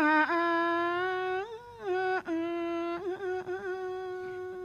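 A Buddhist monk chanting a sermon verse in the drawn-out melodic style of Northern Thai preaching, holding long notes with slow glides and a few short breaks.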